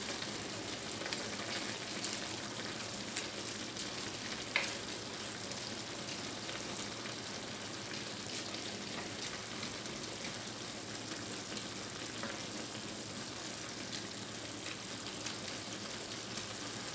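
Spinach and rice simmering in a wide pan with a steady sizzle, while a spoon stirs through it with soft scrapes. There is one sharper click about four and a half seconds in.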